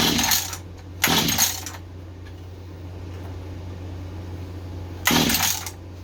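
Mantis mini tiller's recoil starter pulled three times, each pull a short rasping whir of about half a second, twice in quick succession and again about five seconds in; the engine cranks but does not fire. A steady low hum runs underneath.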